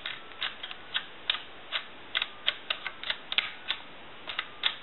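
Push-button keypad of a Mickey Mouse telephone being pressed as a number is dialed: an irregular run of about twenty short, sharp button clicks.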